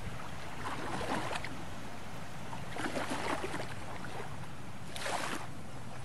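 Shoreline ambience by the bay: a steady low wind rumble on the microphone, with small waves washing onto the shore three times, about two seconds apart.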